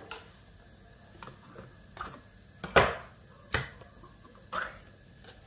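A handful of short, light knocks and clicks, about six in all and the loudest about halfway through, from hands handling kitchen things, most likely a coconut milk container being readied to pour.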